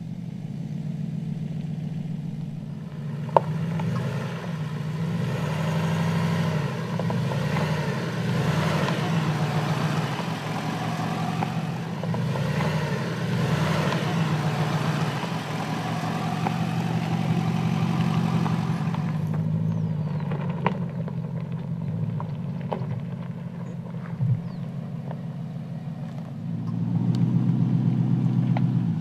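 Porsche Cayenne S's 3.6-litre twin-turbo V6 running at low revs as the SUV crawls over rough dirt, with tyre and gravel noise over much of it and a few sharp knocks from the running gear. The engine note rises near the end.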